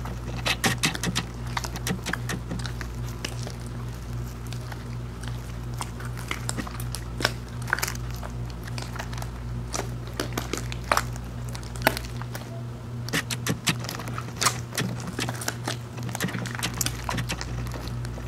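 Fluffy slime squeezed and kneaded by hand, giving off many small, sharp, irregular pops and crackles as trapped air pockets burst, over a steady low hum.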